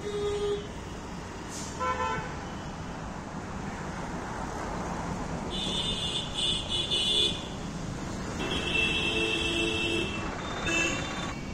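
Street traffic noise with vehicle horns honking several times: short toots near the start and about two seconds in, a series of honks around six to seven seconds, and a longer honk around nine seconds.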